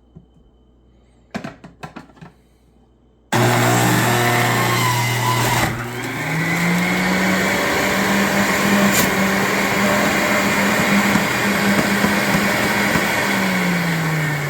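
A few light clicks, then about three seconds in the Hamilton Beach juice extractor's electric motor switches on and runs with a loud, steady whir. Its pitch steps up a couple of seconds later, holds, and sinks again near the end.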